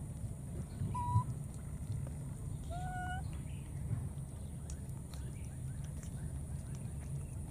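Baby macaques giving two short, clear coo calls, one about a second in and a lower one near three seconds, over a steady low rumble.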